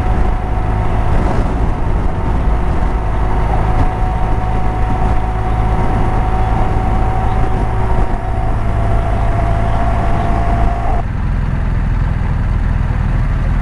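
Motorcycle riding at road speed: a steady engine drone and wind rush on the rider's microphone, with a steady whine over it that cuts off about eleven seconds in.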